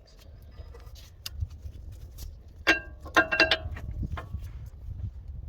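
Loose metal brake parts and tools clinking against each other during a rear brake caliper job, with light clicks throughout and a cluster of sharp ringing clinks about three seconds in.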